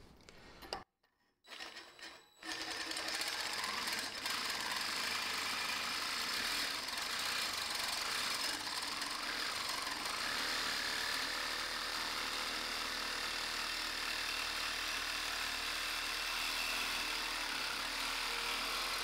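DeWalt 18V cordless reciprocating saw, fitted with a new blade, sawing through 6 mm mild steel plate clamped in a vise. After a brief gap near the start it cuts steadily at an even pace.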